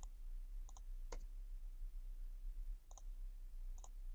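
Computer mouse clicking: a handful of faint, short clicks at irregular intervals, some in quick pairs, as objects are picked on screen.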